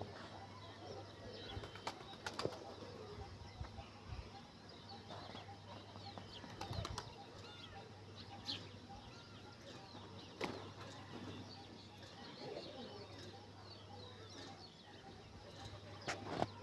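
Rock pigeons: a few short wing flaps and faint scattered calls, over a steady low hum.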